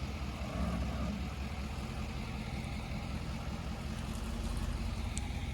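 Ford Super Duty pickup's engine idling steadily.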